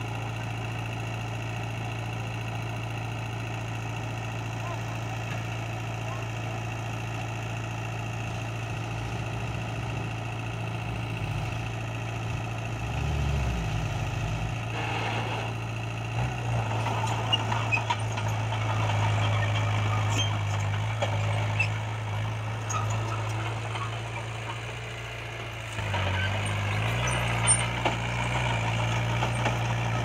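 Diesel engines of a dump truck and a small Komatsu D20P crawler bulldozer running steadily. About halfway through the truck's engine revs as it pulls away. Near the end the bulldozer's engine works harder as it pushes a pile of soil.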